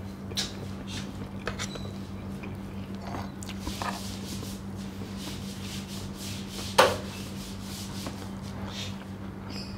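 Eating sounds close to a clip-on microphone: cutlery scraping and clicking against a plate of noodles, with one sharp, loud clink about seven seconds in. A steady low hum runs underneath.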